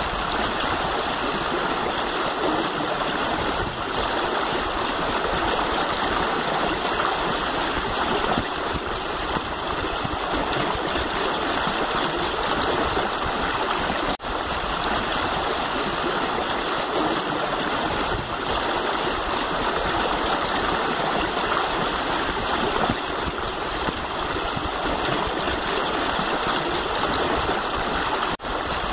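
Shallow river rushing and splashing over rocks, a steady, even water noise with two brief drop-outs.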